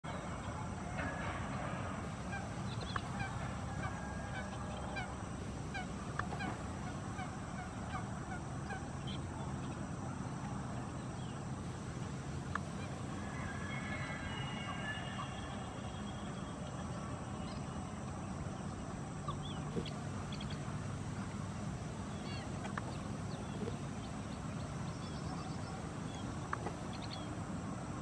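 Outdoor bird calls: many short scattered chirps and, about halfway through, a longer call lasting a few seconds, over a steady low rumble.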